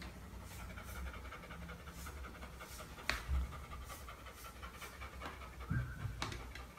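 Golden retriever panting, faint and steady at about three breaths a second, with one sharp click about three seconds in.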